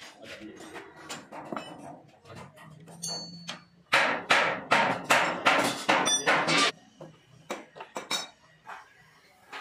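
Hammer blows on the steel parts of a grass cutter under repair. A few light knocks and a brief metallic ring come first, then a run of about eight loud, sharp strikes, roughly three a second, before it goes back to lighter knocks.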